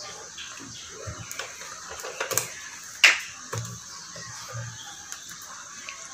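Cooking-pan clatter: scattered clicks and knocks of a utensil against a pan over a faint steady hiss, with one sharp clack about three seconds in.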